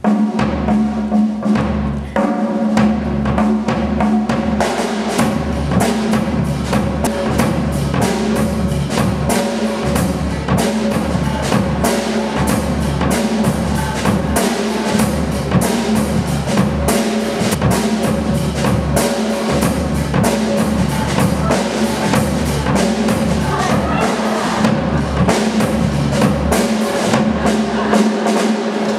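Percussion-heavy instrumental music: fast, dense drumming over a steady low tone, the score for a contemporary dance piece.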